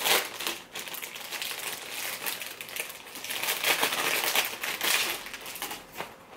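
Packaging of a makeup brush set crinkling and rustling as it is handled and opened, in irregular crackles that grow louder partway through and die down near the end.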